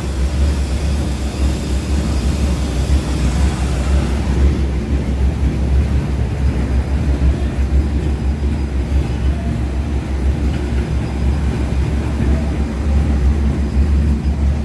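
Large industrial textile-waste shredder running under load: a loud, steady low rumble. A higher hiss drops away about four seconds in.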